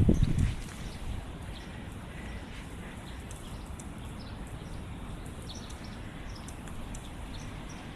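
Faint, scattered bird chirps over a steady low outdoor rumble, with a few heavy thumps in the first half-second.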